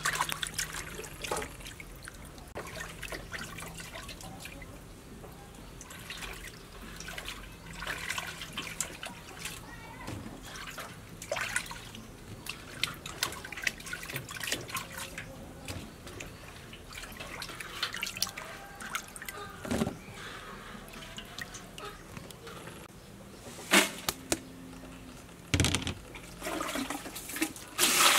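Hands swishing and washing vegetables in a metal basin of water, with small irregular splashes and drips and a few louder splashes. Near the end water starts pouring into the basin in a loud, steady gush.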